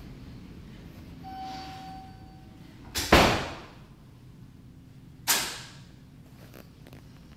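Two sharp bangs that ring off briefly: a loud one about three seconds in and a weaker one about two seconds later. A short, faint steady tone comes just before the first.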